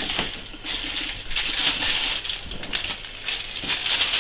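Paint roller being worked in a tray of vinyl matt emulsion: a sticky, crackling hiss that swells and fades with the strokes, after a knock as the paint tin is set down at the start.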